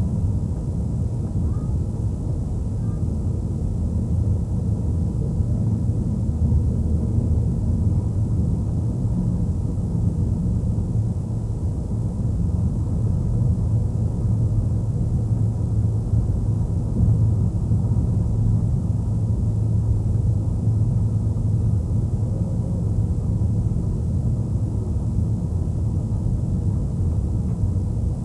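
Steady low rumble of a moving train heard from its rear car.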